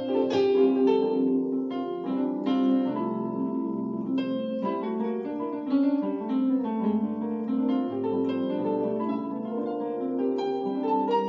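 Keyboard playing a flowing chord progression in a worship-song style, held chords in the low and middle range with quick runs and flourishes of high notes on top, in a bright, harp-like tone.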